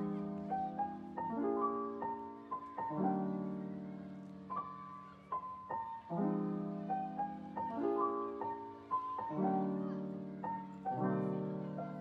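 Soft piano background music: chords struck and left to fade, with a light melody above them, changing about every one and a half seconds.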